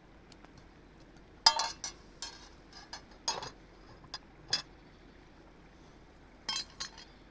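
Hard objects being handled, making a string of sharp clinks and clatters that come in small clusters, the loudest about a second and a half in and another cluster near the end.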